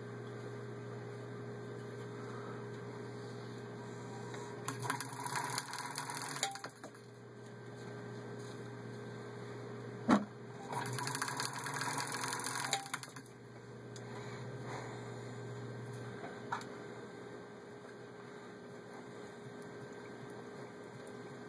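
Antique Willcox & Gibbs chain stitch sewing machine, driven by its electric motor, stitching denim in two short runs of about two seconds each, one about five seconds in and one about eleven seconds in, with a sharp click between them and a steady low electrical hum under much of it. The start-stop stitching goes with the denim catching under the back of the presser foot at first.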